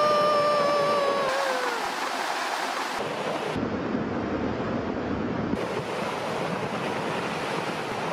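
A high voice holds a long wailing cry that sags and fades out about two seconds in. Then comes a steady rushing noise as a rockfall pours down a snowy slope in a cloud of dust, mixed with wind on the microphone.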